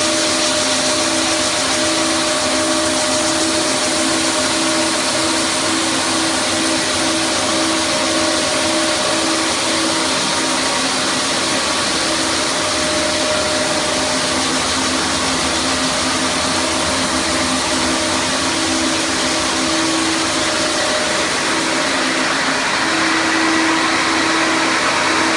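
ROLL Bausauger 2300 construction vacuum running steadily, pulling sanding dust through a cyclone pre-separator: a continuous rushing noise with a steady low hum.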